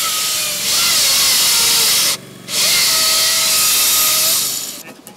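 Hose-fed power cutting tool working on steel reinforcing bar in concrete rubble: a loud hissing rush with a whine under it, in two runs of about two seconds split by a short break, dying away near the end.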